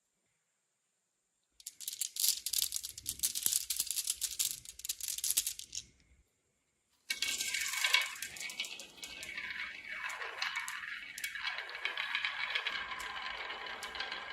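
Marbles clattering down a marble run: a dense rattle of many small clicks for about four seconds, a short pause, then another steady rattle starting about seven seconds in.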